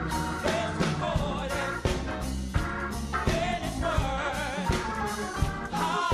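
Three women singing together into microphones over amplified instrumental backing with a steady beat.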